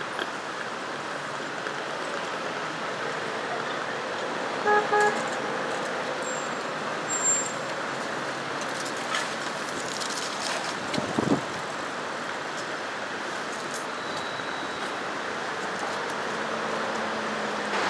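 Steady city traffic noise, with a horn giving two short beeps about five seconds in.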